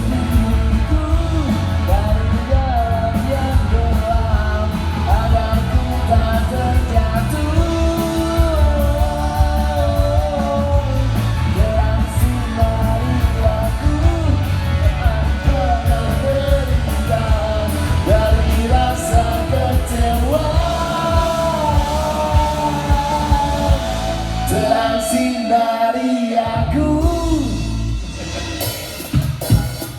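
A rock band plays a song live with a lead vocal over heavy bass and drums. Near the end the drums and bass drop away and the song winds down.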